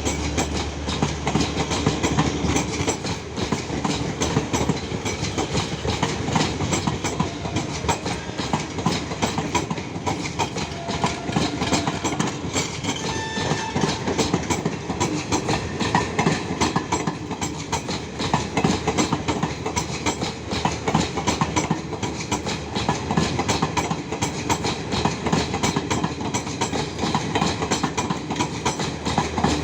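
Garib Rath Express passenger train running at speed, a steady rumble with a rapid, continuous clatter of wheels over the rail joints.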